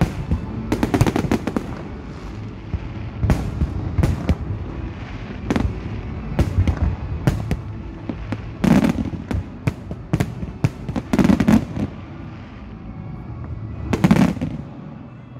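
Fireworks display: aerial shells bursting overhead in a rapid, irregular series of bangs and crackles. A few heavier booms come about 9, 11 and 14 seconds in.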